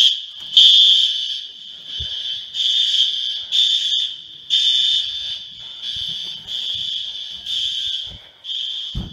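Apartment building fire alarm sounding a loud, high-pitched tone that pulses about once a second, set off by a burst water heater.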